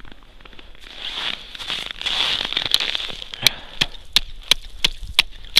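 Crunching and scraping on snow-covered river ice, then from past the middle a run of sharp, evenly spaced knocks on the ice, about three a second.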